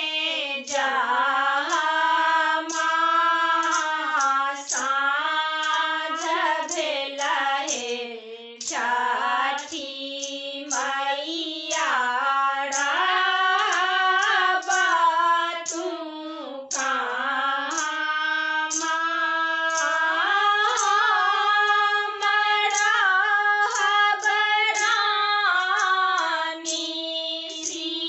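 Women singing a Maithili Chhath folk song together, unaccompanied, in one melodic line with the pitch sliding and held between short breaths.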